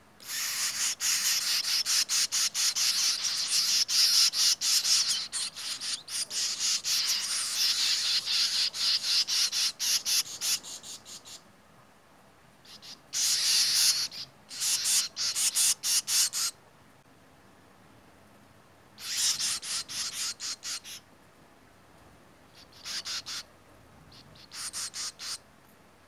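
Swallow nestlings in a mud nest calling to be fed: rapid, high, chittering begging calls in a long run for about the first ten seconds, then in shorter bursts with pauses between.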